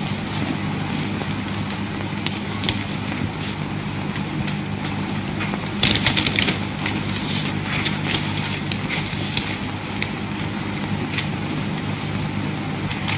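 Steady low hum of an old film soundtrack, with scattered light clicks and taps, a cluster of them about six seconds in.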